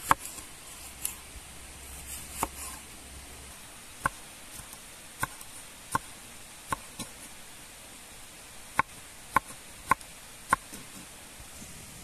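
Chef's knife cutting tomatoes on a wooden cutting board: about a dozen separate knocks of the blade striking the board, irregularly spaced, with a quicker run of four later on.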